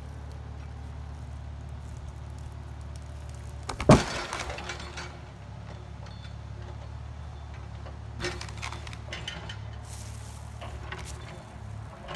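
Excavator's diesel engine running steadily, with one loud sharp crack about four seconds in and a few lighter cracks and clinks later on, from the excavator working limbs off trees.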